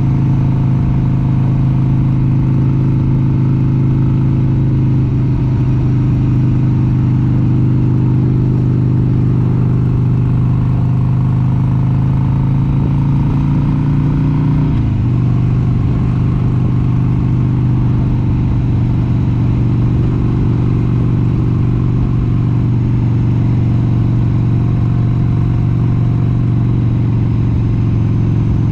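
1996 Harley-Davidson XLH883 Sportster's air-cooled 883 cc V-twin engine running steadily at cruising speed. About halfway through, its note drops a step in pitch and then holds steady.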